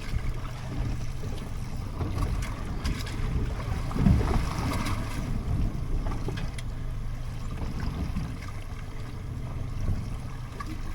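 Choppy sea water slapping and sloshing against a small fishing boat's hull, with wind gusting over the microphone; a bigger splash about four seconds in.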